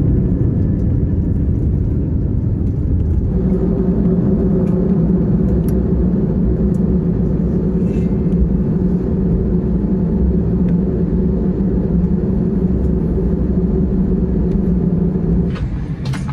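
Steady cabin rumble of an Airbus A321 jet taxiing, with a low hum that comes in about three seconds in and holds steady. The sound drops suddenly near the end.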